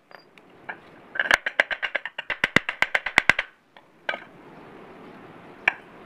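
A hammer tapping on the steel axle and seal of a washing machine spin plate to seat the small lower seal: a quick run of about twenty light, sharp metallic taps, with a few single taps before and after.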